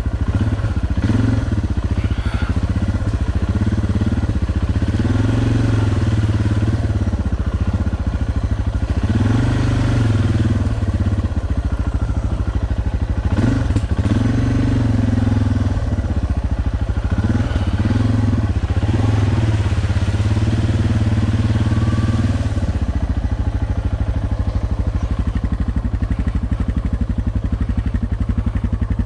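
Suzuki DR650's single-cylinder four-stroke engine running as it is ridden, its pitch rising and falling over and over with the throttle, then holding a steadier low note for the last several seconds.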